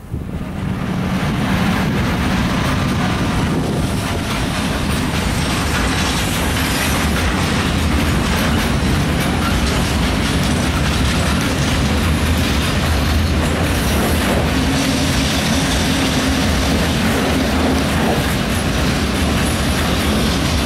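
Freight train of hooded wagons, with a blue electric locomotive, passing close by: a steady rumble and clickety-clack of steel wheels on the rails over a low hum. It swells over the first second or so, then holds steady.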